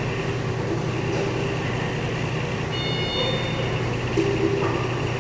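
A steady engine running, with a short burst of high beeping tones about three seconds in.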